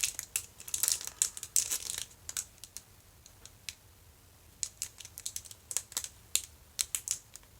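Plastic packaging crinkling and clicking as it is handled, in scattered irregular bursts with a lull in the middle.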